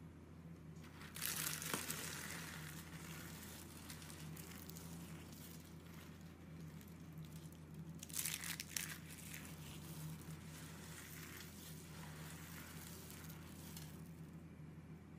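Hands crushing and crumbling curled soap shavings: a dry crackling and crunching, loudest about a second in and again about eight seconds in, with lighter crackling between, over a steady low hum.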